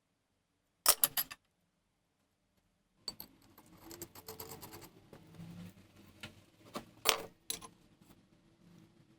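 Small metal parts clicking and clinking as they are handled: a quick cluster of clicks about a second in, then softer rattling and handling noise with two sharper clicks near the end.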